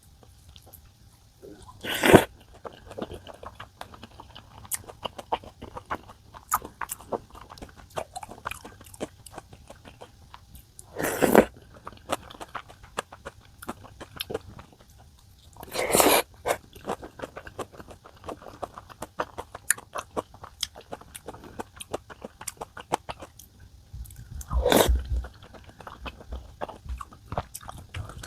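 Close-up eating sounds: steady chewing with many small mouth clicks, broken four times by louder noisy bursts of about half a second each.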